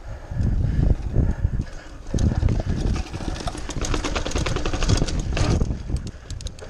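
Mountain bike rattling as it rides over cobbles and down brick steps, with a dense run of sharp clicks from about two seconds in to about six seconds in. Wind buffets the microphone throughout with an uneven low rumble.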